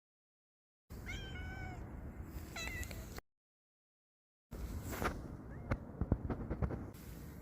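A domestic cat meowing twice, the first call a little longer and falling slightly in pitch. Near the middle there is dead silence, followed by a run of sharp clicks and taps.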